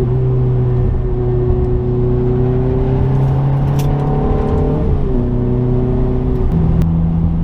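Ferrari F430's 4.3-litre V8 pulling under acceleration, its pitch climbing slowly, then dropping about five seconds in at a gear change.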